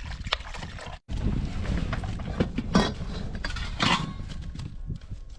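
Wind buffeting the microphone as a low rumble, with a few sharp knocks and clatters of cooking gear being handled.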